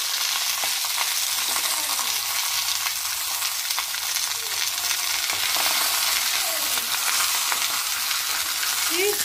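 Masala-coated pomfret on a banana leaf frying without oil on a hot griddle (tawa), with a steady sizzle and fine crackle.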